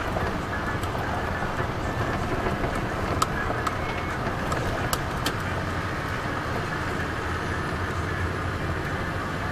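Car engine and tyre road noise heard from inside the cabin while driving, a steady rumble with a few sharp ticks scattered through it.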